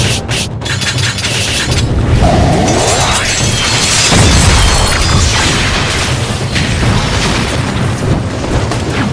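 Dubbed battle sound effects: an explosion boom with rising sweeps, loudest about four seconds in, over dramatic soundtrack music.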